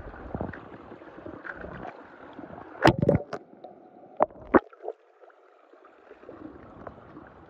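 Pool water splashing and sloshing around small die-cast toy trains, with sharp splashes about three seconds in and again about four and a half seconds in.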